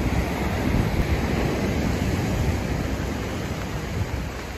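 Steady wash of sea surf and wind on a sandy beach, with no distinct events.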